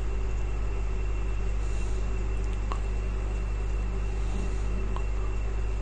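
A steady low electrical-sounding hum with a thin, faint high whine over it, broken only by a few faint ticks.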